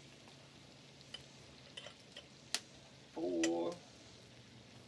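Melted butter sizzling faintly in a cast iron pot as flour is added for a roux, with a few light clicks scattered through it. A short spoken syllable comes a little past halfway.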